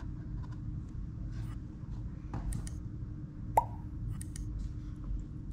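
A low steady hum with a few faint ticks, and one sharp click with a short ringing tone about three and a half seconds in.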